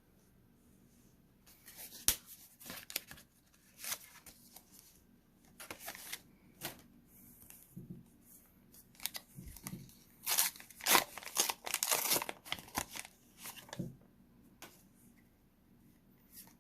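Small plastic Pokémon card pack wrapper being torn open and crinkled: a string of short, irregular rips and crackles, busiest and loudest about ten to twelve seconds in.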